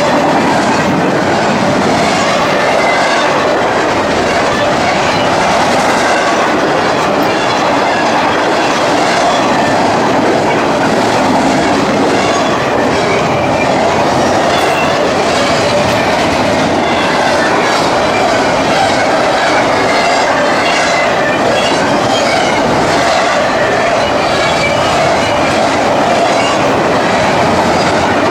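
Cars of a CSX intermodal stack train rolling past: a loud, steady rush of steel wheels on rail with a running clickety-clack.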